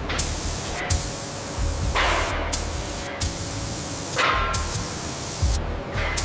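Sawmill machinery working a log, making a loud, continuous hiss that dips briefly about once a second.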